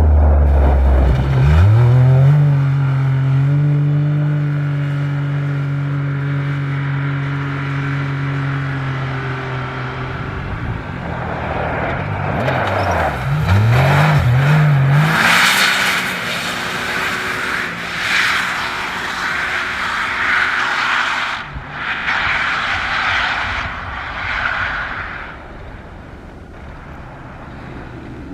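A rally-raid race car's engine revving hard on a special stage. The note climbs steeply early on, holds steady at high revs, then rises and falls rapidly in short bursts. A loud rushing, scraping noise from the car follows before the sound fades away near the end.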